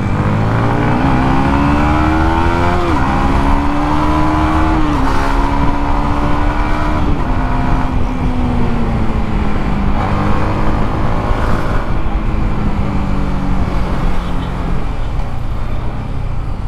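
Yamaha MT-15's 155 cc single-cylinder engine accelerating through the gears: the pitch climbs and drops at each upshift, about every two seconds, then settles into a cruise with the pitch slowly easing down. Heavy wind rumble on the microphone lies under it.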